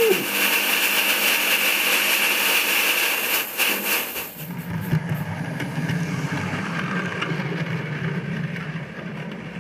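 Steam locomotive blowing a loud hiss of steam and ashes out through its funnel, the engine's 'sneeze', for about four seconds. It then gives way to a lower, steady rumble of the train running.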